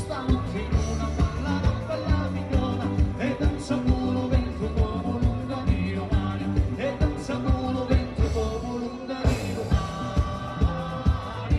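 Live folk band playing a fast southern Italian taranta (tarantella) dance tune, with singing over a steady, driving beat.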